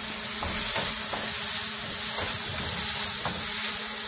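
Chopped tomatoes and onions sizzling in hot oil in a nonstick frying pan, stirred with a wooden spatula, with a few light taps of the spatula against the pan.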